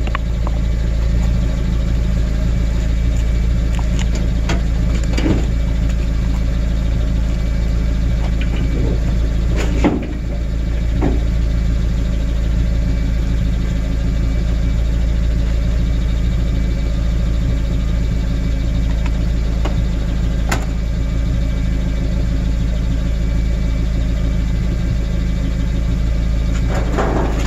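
A vehicle being driven, its engine and road noise making a steady low rumble, with a few light knocks and one thump about ten seconds in.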